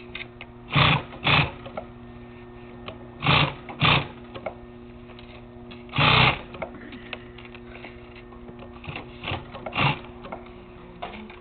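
Consew 206RB walking-foot industrial sewing machine: its motor hums steadily while the machine runs in several short loud bursts of stitching through heavy material, with small clicks in between.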